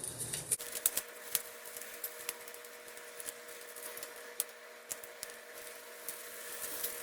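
Ground meat and green peppers sizzling in a frying pan, with irregular crackles and pops over a steady hiss and a low steady hum.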